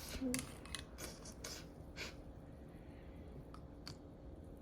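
Light clicks and knocks of tumbled stones against one another as a hand feels through the gritty slurry in a rock tumbler barrel. There are several in the first two seconds, then a few fainter ones.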